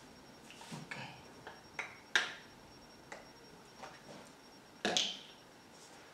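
A scattered series of light clicks and knocks from small hard objects being handled and set down, the loudest about two seconds in and another about five seconds in.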